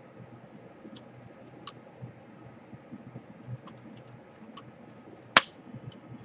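Scattered light clicks and taps from handling a laptop's plastic parts during disassembly, with one sharp snap a little over five seconds in.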